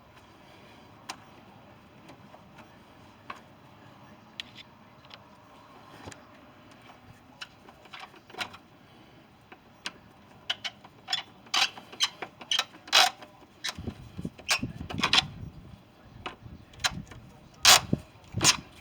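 Clicks and metal clatter of hand work on a rubber hose and metal hose clamp in an engine bay: sparse and faint at first, then busier and louder over the last several seconds, with a few heavier knocks.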